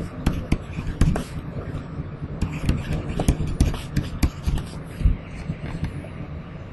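Irregular clicks and light knocks, several a second, from a stylus writing on a pen tablet, over a steady low hum.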